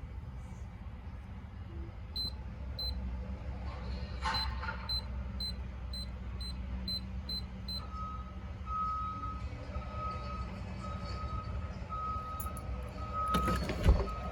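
Sowheel DK01 keypad deadbolt beeping at each keypress as a code is punched in: about ten short, high beeps. These are followed by a lower tone repeating in longer beeps, with a brief louder mechanical sound near the end.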